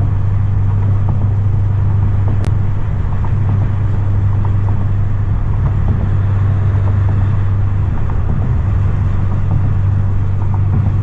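A car cruising at a steady highway speed: a constant low engine and exhaust drone over road noise, with one short click about two and a half seconds in.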